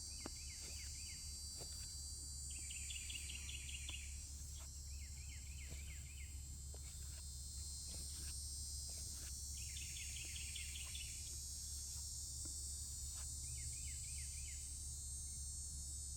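Steady chorus of insects such as crickets, with a bird singing a short repeated phrase five times.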